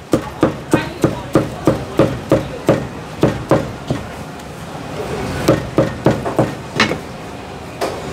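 A Chinese cleaver chopping through char siu onto a thick round wooden chopping block: a steady run of knocks, about three a second. It pauses about four seconds in, then several more strokes follow.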